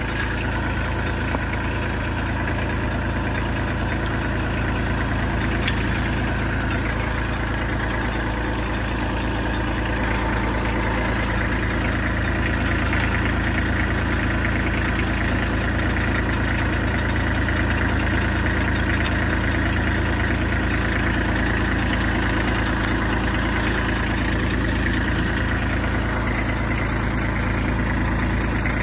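Kubota B7500 tractor's three-cylinder diesel engine idling steadily, with a few faint clicks over it.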